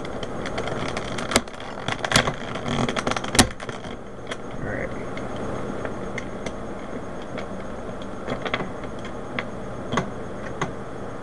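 Plastic Rubik's Cube pieces clicking and snapping as they are fitted back into a partly reassembled cube. A quick run of sharp clicks in the first few seconds thins out to single clicks every second or two, over a steady background hum.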